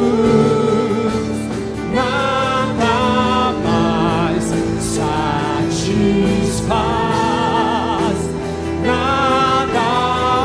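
Christian worship music: voices sing long, wavering lines over sustained instrumental chords.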